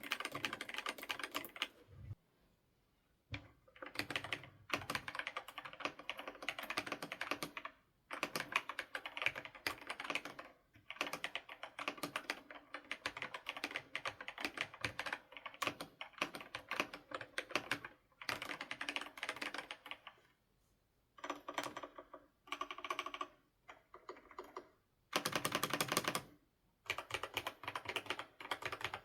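Fast typing on a Womier M90 custom mechanical keyboard: rapid keystrokes in bursts of a few seconds, broken by short pauses.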